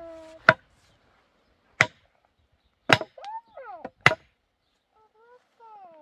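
Four sharp blows of a hand tool's metal head knocking a wooden post down into a hole in the ground, about a second apart.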